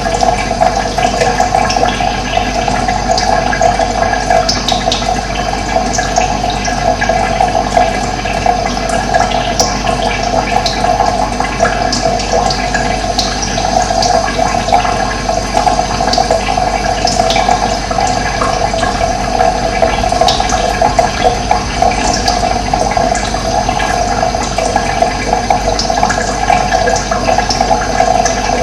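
Steady rushing of running water, with brief high bird chirps scattered over it.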